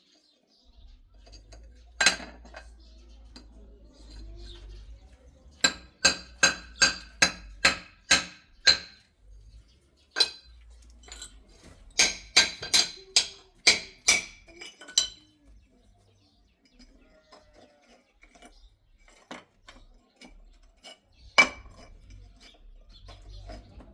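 Sharp, ringing metallic clinks: hard objects striking each other in two quick runs of about seven or eight strikes, roughly two and a half a second, with single strikes before, between and after.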